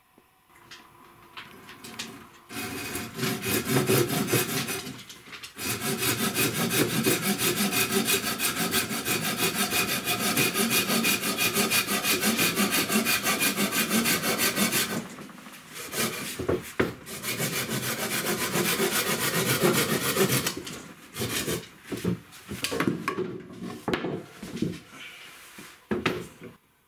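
Knife blade scraping bark off a wooden branch in quick, steady, repeated strokes. After a short pause about 15 seconds in, the strokes resume, then turn sparser and irregular toward the end.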